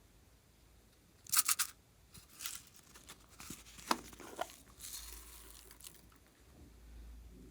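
Close, crisp crinkling and tearing from slime-making materials being handled. A sharp burst of crackles comes about a second in, the loudest moment, then scattered softer crackles and a brief hiss.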